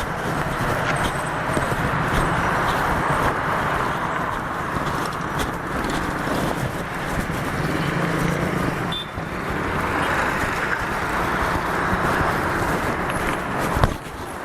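Steady city street traffic noise from passing cars, dipping briefly about two thirds of the way through, with a sharp knock near the end.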